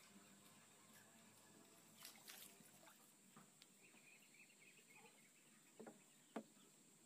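Near silence on the water while a small fish is landed from a boat on a fishing line: a few faint brief rustles about two seconds in, and a short sharp knock near the end.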